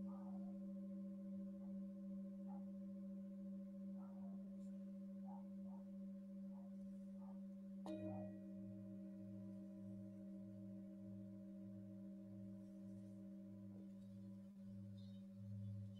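Tibetan singing bowls ringing faintly with long, overlapping sustained tones. About eight seconds in, a large bowl is struck, adding a fresh ring and a low pulsing wobble a little under twice a second.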